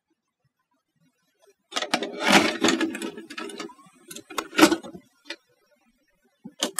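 A VHS cassette being loaded into a Super VHS ET video recorder: the tape is pushed into the slot and the deck's motorized loading mechanism draws it in and seats it with a rattling, whirring clatter and clunks. A single click follows, then a couple of sharp clicks near the end.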